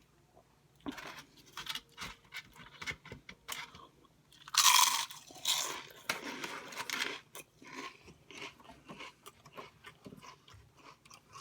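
Close-up crunching and chewing of crisp food, a run of short crackly bites, the loudest and longest crunch about four and a half seconds in.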